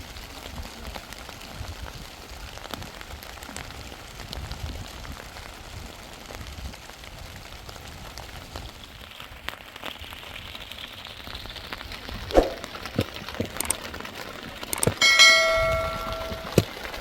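A steady hiss, then a few sharp knocks and, about fifteen seconds in, a short metallic ring lasting about a second, like struck metal.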